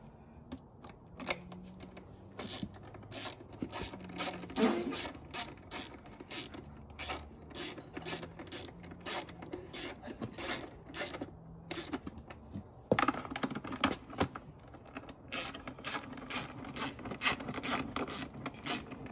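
Ratchet clicking in quick repeated strokes, about three clicks a second, as bolts are tightened down on a dirt bike's side number plate, with a short pause about two-thirds of the way through.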